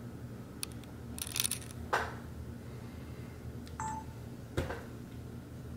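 Handling noises: a few light clicks, a brief rustle and two sharp knocks, with a short electronic beep about a second before the second knock.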